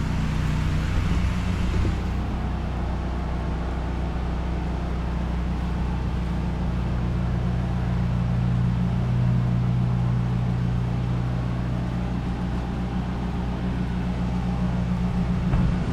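Pressure washer's gas engine running steadily, a low, even drone that does not change.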